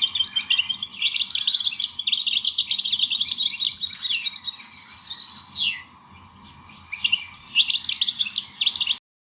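Small songbirds chirping and trilling rapidly, several calls overlapping, with a quick falling note and a short lull about six seconds in before the chirping resumes. The sound cuts off abruptly near the end.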